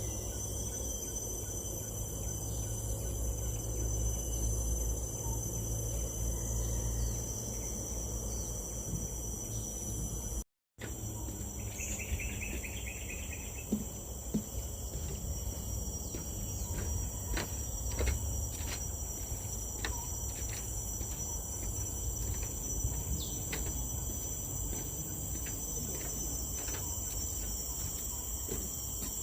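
Steady high-pitched drone of tropical forest insects such as crickets, over a low rumble, with a short pulsing chirp about twelve seconds in and scattered light clicks in the second half. The sound cuts out completely for a moment near the middle.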